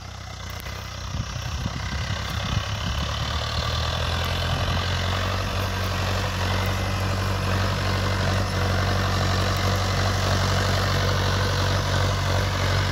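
Mahindra Arjun Novo 605 DI MS tractor's four-cylinder diesel engine running steadily while pulling a bakhar harrow through dry soil, not straining. It grows louder over the first few seconds as the tractor draws nearer, then holds steady.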